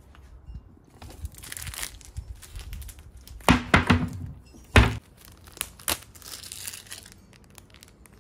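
Rummaging among containers on a workshop storage shelf: rustling and crinkling, with a few sharp knocks and clunks about three and a half to six seconds in.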